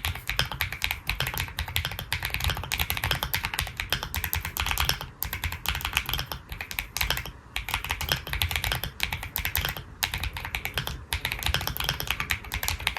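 Fast continuous typing on a mechanical keyboard with purple (苦茶紫軸) switches: a dense run of keystroke clacks, broken by a few brief pauses.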